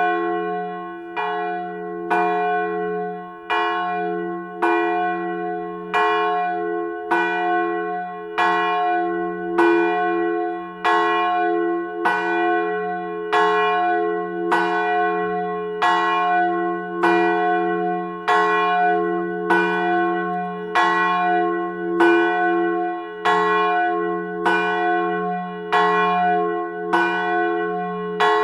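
A church bell tolling steadily at the same pitch, struck about once every second and a bit, each stroke ringing on under the next.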